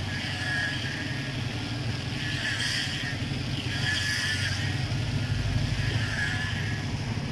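A small engine running steadily with a dense, even rumble, and a higher rasping noise that swells and fades every second or so.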